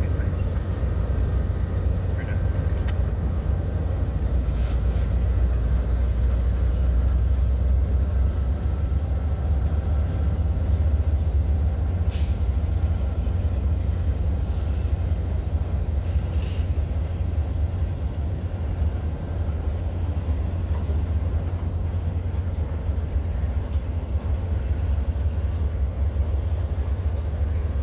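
Freight cars rolling across a steel railroad bridge: a steady low rumble of wheels on the rails, with a few faint sharper clanks.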